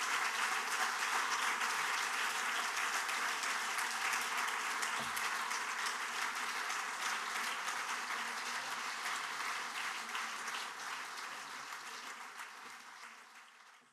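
Audience applauding: dense, steady clapping from a large crowd that fades away over the last few seconds.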